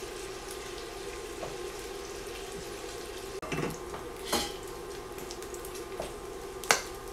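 Bacon frying in an enamelled cast-iron Dutch oven, a steady sizzle as its fat renders. A few sharp knocks and clinks come in the second half.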